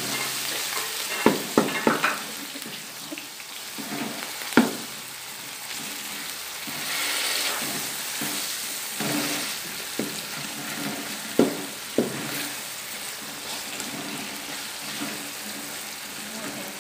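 Chopped tomatoes and green chillies sizzling in hot ghee in a stainless-steel wok, with a steady hiss, while a wooden spatula stirs and knocks against the pan every second or two.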